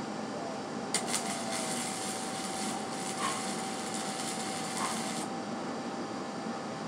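Wire-feed welder's arc crackling and hissing as a weld is laid on a steel go-kart frame. It starts sharply about a second in and cuts off suddenly after about four seconds, over a steady background hum.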